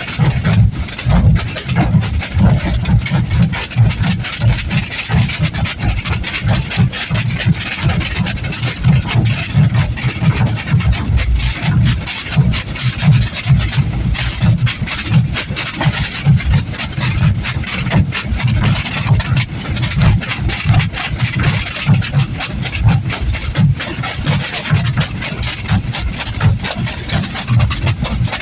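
Many processional drums, tambores with bass bombos, beating together without a break in a dense, heavy mass of strokes.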